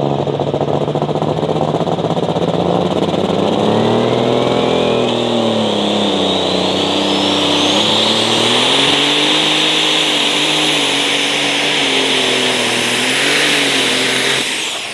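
Turbocharged diesel pulling tractor running flat out under load, its engine pitch wavering up and down. Over it a turbo whine climbs steadily for several seconds, then holds high.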